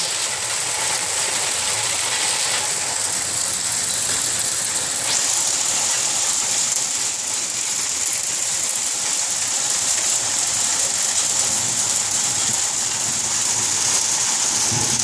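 Hailstorm with heavy rain: a dense, steady hiss of hailstones and rain pelting the paving and foliage.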